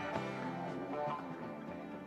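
Guitar-led rock music, fading out.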